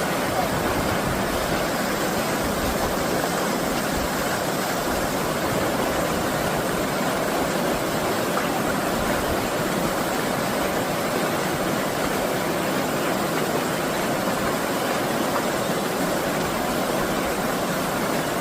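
Mountain stream rushing steadily over rocks, an even unbroken rush of water.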